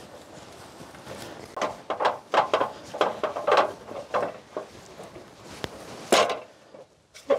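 Knocking and clattering of hard objects being handled and set in place: a quick run of knocks about two seconds in, then one sharp knock near the end.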